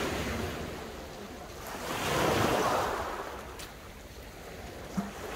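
Small waves breaking and washing over a shingle beach, one surge of rushing water swelling to a peak about two seconds in and then drawing back.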